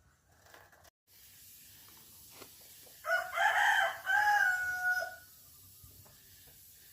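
A rooster crowing once, a call of about two seconds that ends in a long held note.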